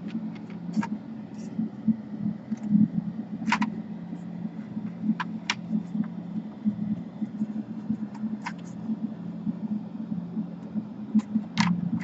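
Plastic snap clips of a Dell Inspiron 17 5000 laptop's palmrest clicking into place as the cover is pressed down along its edges. There are about ten sharp clicks spread out, the loudest near the end, over a steady low hum.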